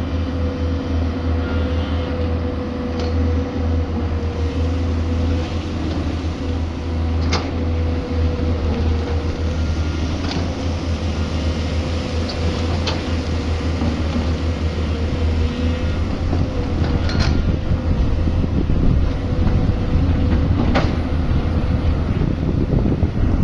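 Excavator's diesel engine running steadily with a constant whine over it, and a few sharp clanks every few seconds.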